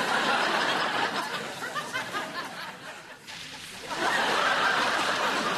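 Studio audience laughing in two swells, dipping about three seconds in before rising again.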